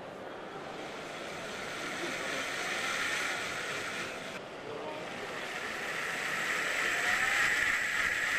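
Cordless blender with a brushless motor and magnetic clutch running, a steady whooshing churn with no strong motor whine, getting louder in the second half.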